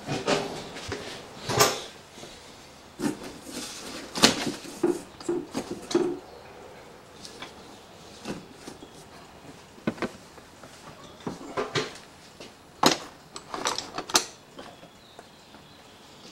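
Hand tools and small metal parts being handled on a workbench: irregular clinks, clicks and knocks, a few with a short metallic ring, bunched around the middle and again near the end.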